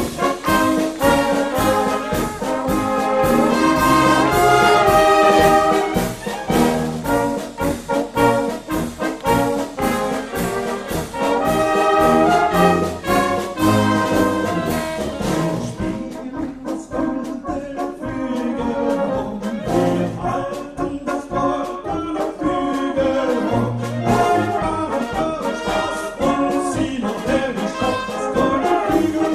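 Brass band playing, with flugelhorns, trumpets and trombones carrying the tune over tubas and a drum kit keeping a steady beat. Past the middle the drums drop back for a few seconds, then the full beat returns.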